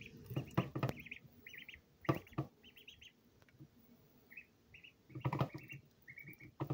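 Duckling peeping in quick runs of short, high peeps while it eats, with sharp knocks of its bill against the plastic plate as it pecks at its food, a cluster near the start, a pair about two seconds in and a burst past the five-second mark.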